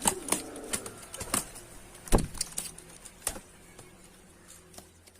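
Pigeons moving about, with a run of sharp, irregular claps and flutters; the loudest clap comes about two seconds in.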